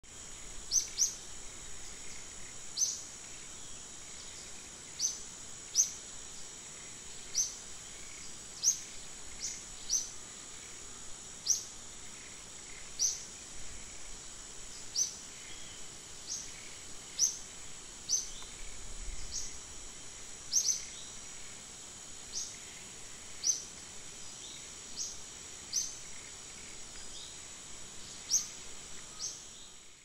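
A small bird chirping over and over, short rising chirps about once a second at uneven intervals, above a steady high-pitched insect-like drone and faint hiss.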